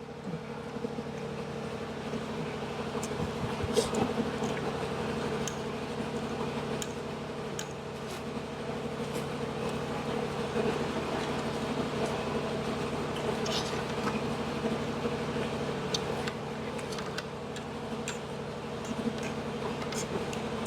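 A steady mechanical hum with a few fixed tones over a faint hiss, broken by scattered small clicks and knocks.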